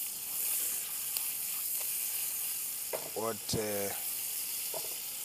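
Bacon frying in a pan over a gas flame, a steady sizzling hiss.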